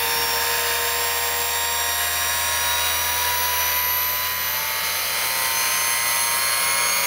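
Neiko mini bench grinder/polisher's high-speed motor running with no load at around 4,400 to 5,000 RPM, its speed slowly climbing. It makes a steady whine of several high tones over a low hum.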